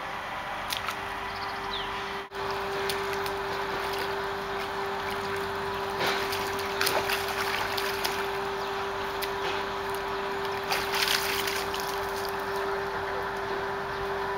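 Water splashing and sloshing as a spotted hyena rolls and thrashes in a shallow muddy puddle, with louder splashes about six seconds in and again about eleven seconds in. A steady low hum runs underneath.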